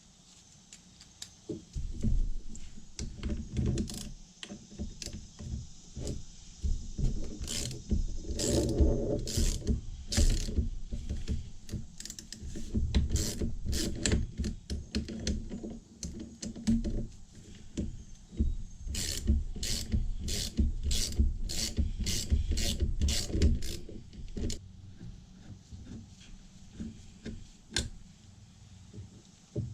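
Metal clicks, knocks and scraping as a Ford 5.0 starter motor is taken apart by hand, with two runs of sharp repeated strokes, about two to three a second.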